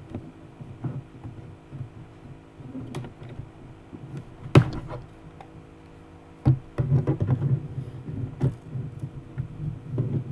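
Handling of a CD box set and its booklet: scattered clicks and knocks of plastic and card, with a sharp click about four and a half seconds in and busier rustling and knocking in the second half.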